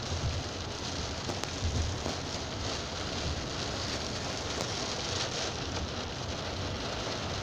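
Heavy rain pounding on a car's roof and windshield, heard inside the moving car as a steady, dense hiss.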